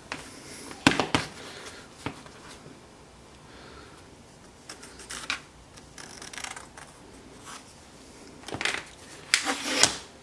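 Wood pieces being handled in a workshop: scattered knocks, clicks and rubbing, with a few louder knocks about a second in and near the end.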